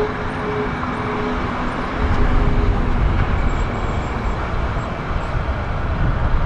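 Boeing 737-800's CFM56 jet engines running on the runway at the start of the takeoff. A steady jet roar whose low rumble grows louder about two seconds in as the engines spool up.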